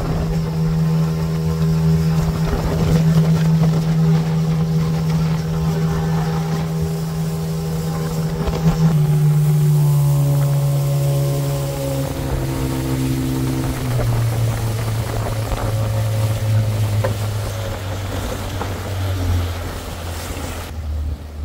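Outboard motor driving a wooden fishing canoe at speed, with wind and water rushing past. From about nine seconds in, its pitch steps down several times as the throttle is eased back and the boat slows.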